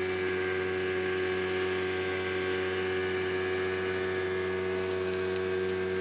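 Speedboat engine running at a steady speed, heard from on board: an even drone that holds the same pitch throughout, over a steady hiss.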